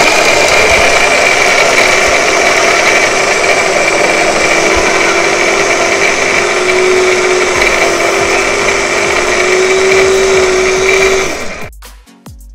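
Small electric food chopper running steadily as its blades mince red onion and garlic, a constant motor whine throughout; it stops abruptly near the end.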